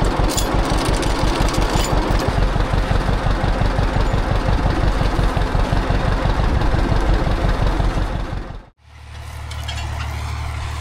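John Deere tractor engine running under load, with a rapid low pulsing of its firing strokes. About nine seconds in it cuts off suddenly, and a quieter, steady low engine hum follows.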